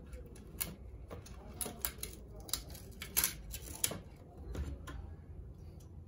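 Light plastic clicks and handling noise from a toy RC car's plastic body shell and wiring being worked by hand, with about half a dozen sharp ticks at irregular intervals.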